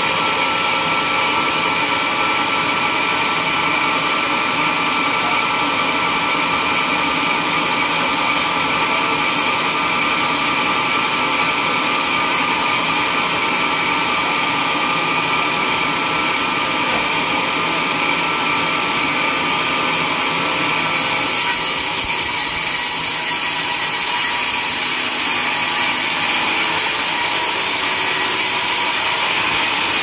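Band sawmill running steadily with a high whine of several tones. About two-thirds of the way through, the sound brightens and grows slightly louder as the blade cuts into a large log.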